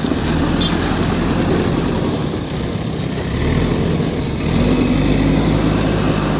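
Diesel engine of a JCB backhoe loader running steadily, its note growing louder about four and a half seconds in as it works.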